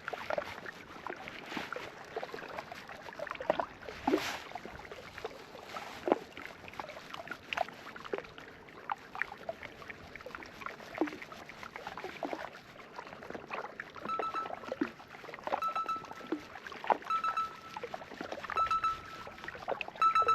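Light, irregular splashes and knocks of water. From about two-thirds of the way through, a short high tone repeats roughly every second and a half.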